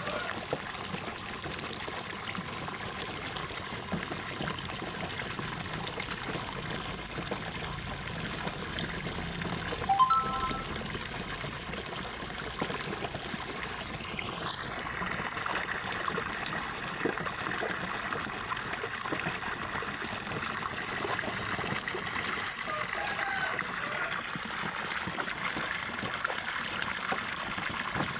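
Water pouring steadily from a spout into a catfish pond, a continuous splashing trickle that aerates the water. About ten seconds in, a brief high chirp.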